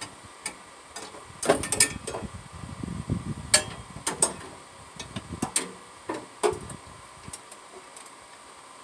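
Irregular metallic clicks, knocks and clanks of hands and tools working on a car's kickdown linkage and clip, with a short rattle about three seconds in.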